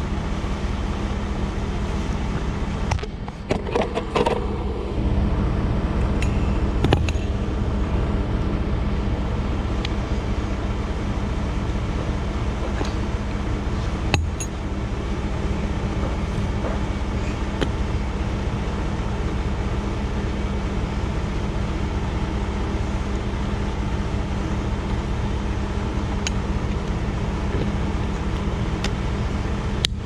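Skid steer engine running steadily while powering the concrete pump's hydraulics, with a few sharp metal clinks and knocks as the pump line is connected.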